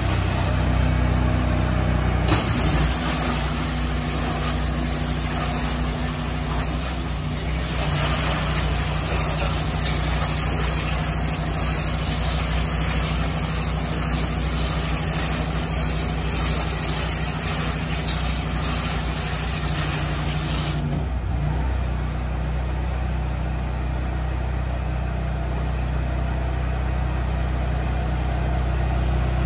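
Steady drone of an engine running, with a loud hiss of hot-water spray jets washing the inside of two upturned trash bins in a bin-washing trailer. The spray starts suddenly about two seconds in and cuts off suddenly about two-thirds of the way through, leaving the engine drone.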